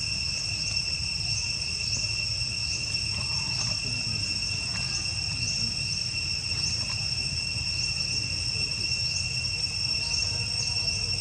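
Steady high-pitched insect drone, the kind a cricket or cicada chorus makes, with short rising chirps scattered over it and a low rumble of background noise underneath.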